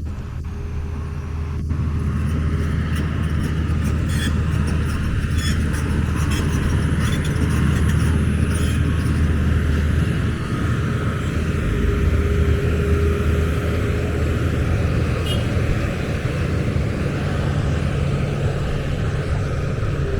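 Road traffic: motor vehicle engines running and passing in a continuous low rumble, with a faint steady engine hum at times and a few light clicks about four to nine seconds in.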